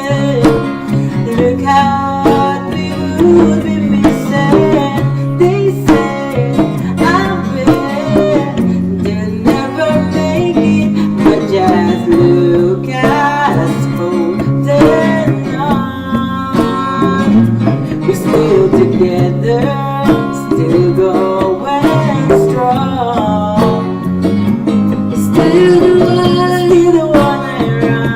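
A cover song sung to guitar accompaniment.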